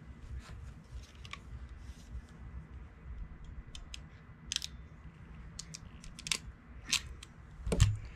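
Wire crimper/stripper and small electrical connectors being handled: irregular sharp clicks and snaps, mostly in the second half, with the loudest near the end.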